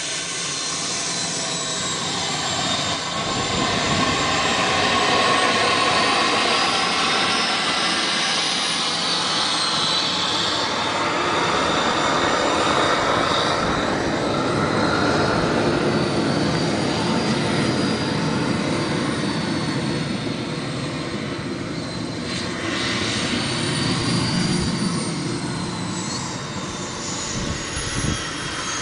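Small turbine engine of a radio-controlled BAe Hawk model jet running, a steady rush with a high whine that slowly rises and falls in pitch several times.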